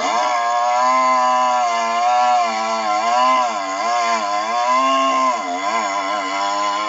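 Stihl 660 two-stroke chainsaw on a chainsaw mill running at high revs while ripping a blue gum log into 2-inch slabs, its engine note sagging and recovering several times.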